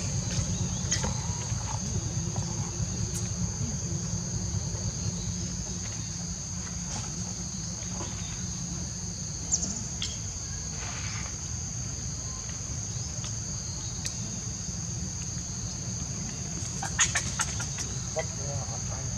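Insects buzzing steadily in one continuous high-pitched drone, over a low steady rumble, with a few scattered clicks and a short cluster of sharp clicks near the end.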